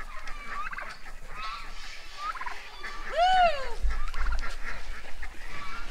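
Farmyard poultry calling, with short turkey gobbles among other fowl calls scattered through. About three seconds in, a person lets out a loud "woo!".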